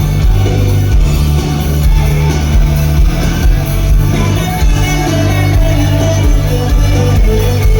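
Live rock band performance in a club, loud, with guitar and heavy bass, recorded on a phone's microphone from the crowd.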